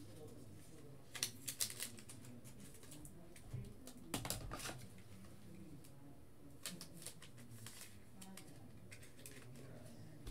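Trading cards being handled and slid into plastic sleeves: scattered soft clicks and rustles, in clusters about a second in, about four seconds in and around seven seconds, over a faint low hum.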